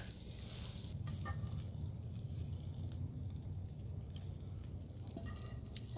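Burgers sizzling faintly in a frying pan on campfire embers, with a few light clicks, over a low steady rumble.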